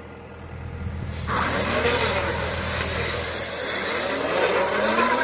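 KUHN SW 4014 AutoLoad bale wrapper starting to wrap a round bale: a low steady engine hum, then about a second in a sudden loud hiss with a wavering whine as the wrapping arms turn and stretch film winds onto the bale.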